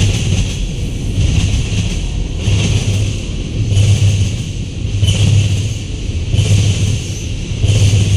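Freight cars of a long mixed-freight train rolling past: a steady rumble of steel wheels on rail, swelling rhythmically about every 1.3 seconds as the wheel sets go by.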